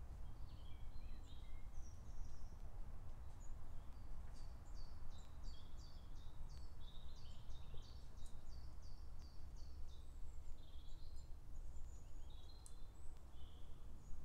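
Woodland songbirds singing, one bird repeating a short, high, falling note about three times a second through the middle, with other chirps around it, over a steady low rumble.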